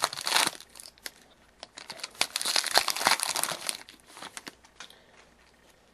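Wrapper of a 2011-12 SP Authentic hockey card pack crinkling and tearing as it is opened by hand. There is a short burst at the start and a longer stretch of crackling from about a second and a half in, then a few small crinkles.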